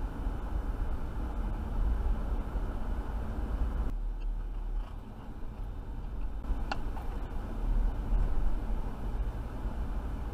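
Steady road and engine rumble from inside a car cruising on a highway, easing off for a couple of seconds in the middle, with one brief click about two-thirds of the way through.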